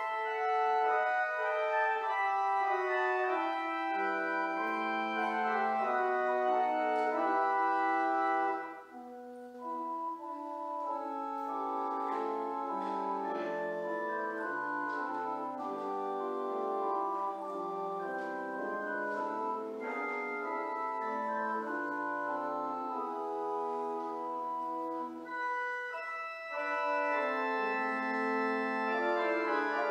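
Church organ playing the postlude after the benediction: sustained chords moving in steps, with a short break about nine seconds in, a softer passage through the middle and the full sound returning near the end.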